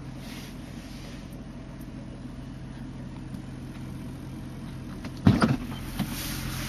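BMW E36 engine idling steadily. About five seconds in there is a sudden loud knock, and then a scratchy hiss grows over the idle: the scratchy metallic idle noise that the owner put down to a low automatic transmission fluid level.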